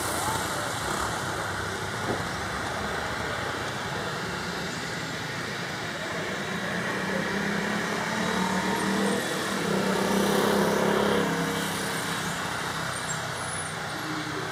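Twin Pratt & Whitney PW530A turbofans of a Cessna Citation Bravo business jet running at low taxi power: a steady rushing jet noise that swells for a few seconds partway through.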